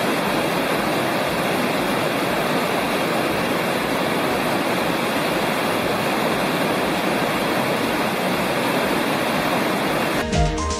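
Rushing water of Big Creek, a mountain stream, giving a steady, even wash of sound.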